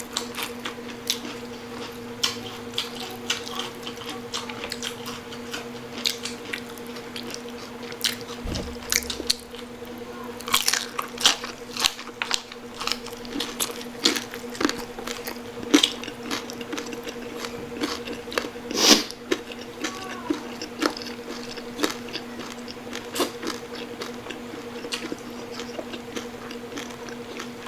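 Close-up crunching and chewing of crispy pata, the crisp-skinned broiled pork knuckle: irregular crisp bites and mouth sounds. A steady low hum runs underneath.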